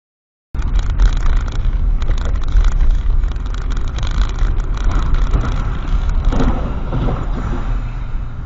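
Steady rumble of a car driving on a wet road, heard from a dashcam inside the car, cutting in abruptly about half a second in after a brief silence.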